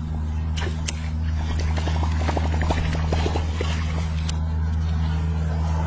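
A boat motor hums steadily. Over it come splashing and clicking from about half a second to four seconds in, as a hooked catfish thrashes at the surface.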